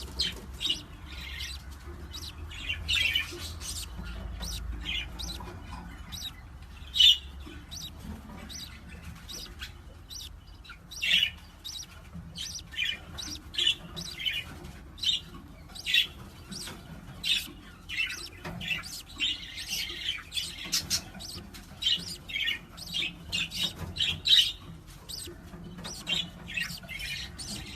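Pet parrot making many short, high chirps and squawks in an irregular series, some calls louder than others.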